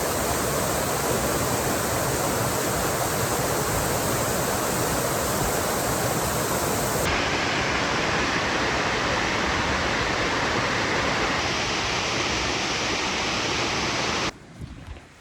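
Fast water of a waterfall rushing steadily, a dense even noise. It changes character abruptly a couple of times and falls away sharply near the end.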